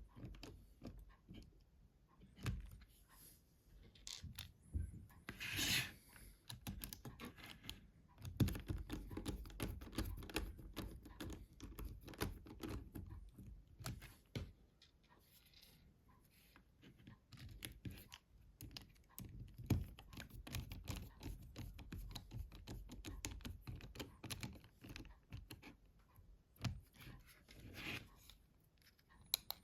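Small plastic and metal parts of a Nokia 7210 phone being handled and fitted by hand: a scattered run of light clicks, taps and scrapes, with a brief rasp about five seconds in.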